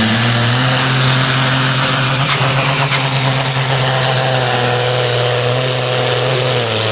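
Diesel engine of a Fendt-bodied Supersport pulling tractor running flat out under full load as it drags the weight sled; a loud, steady engine note held at the same pitch throughout.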